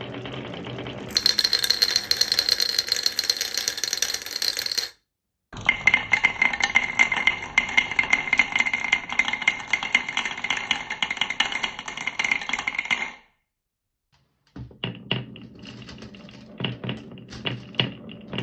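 Marbles rolling and clattering down toy marble-run tracks in several abruptly cut stretches: dense rattling with a steady ringing tone, then sparser separate clicks and knocks near the end.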